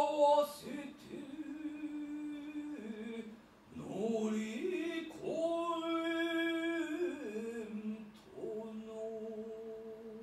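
Biwa-gatari chanting: a solo voice singing long held notes that step and slide from pitch to pitch, with a wavering note near the end. There is a short breath pause a little over a third of the way in.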